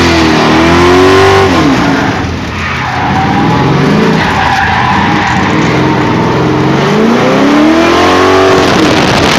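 Car engine heard from on board, revving up and falling back several times as it accelerates and slows, over a steady loud rush of wind and tyre noise.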